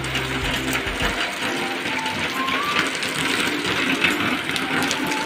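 Steady rain falling on a corrugated metal roof, an even hiss of drops.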